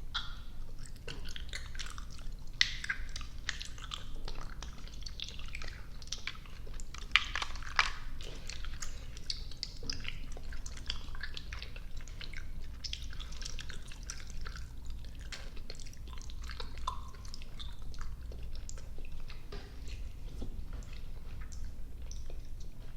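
Close-miked chewing of soft, sticky gummy and marshmallow candy: an irregular run of wet, sticky mouth clicks and smacks, with a few sharper snaps a couple of seconds in and again around seven to eight seconds.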